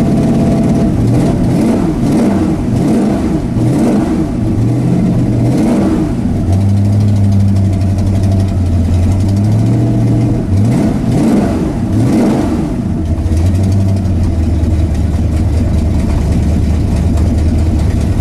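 Ford Ranger drag truck's engine running cold below freezing, revved up and down several times in the first few seconds, settling to a steady idle, then revved again a little past halfway before idling steadily.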